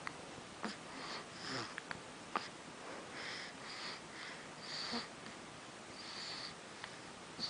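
A baby hiccupping: a few short, sharp hiccups a couple of seconds apart, with soft breathing between them.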